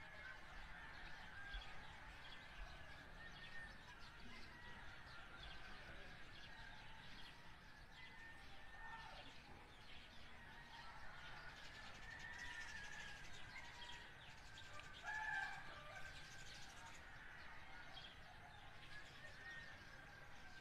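Faint birds chirping and calling. A short, louder call stands out about fifteen seconds in.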